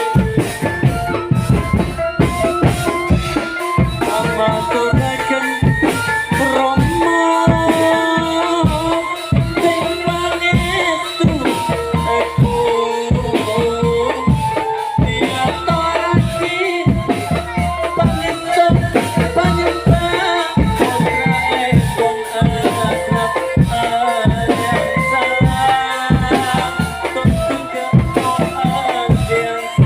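Drum band music: a steady run of drum beats with rattling percussion under a melody line.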